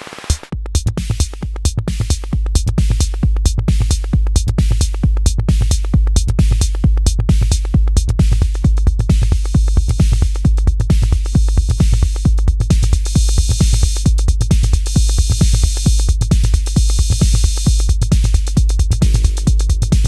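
Arturia DrumBrute Impact analogue drum machine playing a beat: a fast, even pattern of deep kick hits with clicky percussion and hi-hats, starting about half a second in, with a brighter high hiss joining about two-thirds through.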